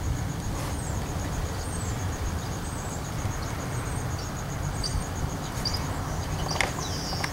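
Steady low rumble of wind and rubbing noise on the microphone. Over it runs a faint high chirp pulsing about five times a second, with a few short higher chirps, more of them near the end.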